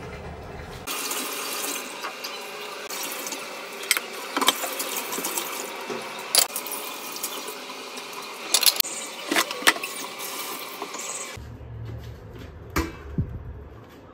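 Tap water running into a stainless steel sink while dishes are scrubbed and rinsed by hand, with sharp clinks of crockery now and then. The water stops about three-quarters of the way in, and a few knocks of metal pots follow.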